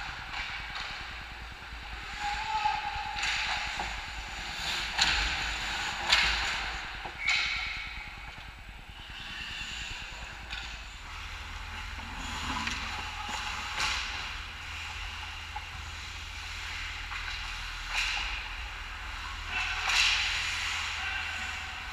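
Ice hockey play: skate blades scraping and carving across the ice, with sharp cracks of sticks and puck, several loud ones between about five and seven seconds in and two more near the end.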